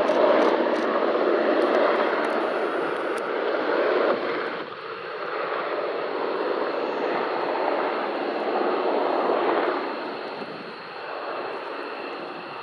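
Sikorsky HH-60 Pave Hawk helicopter in flight: its rotor and twin turboshaft engines make a steady noise with a high whine on top. It fades in two steps, about four seconds in and again near ten seconds, as the helicopter moves away.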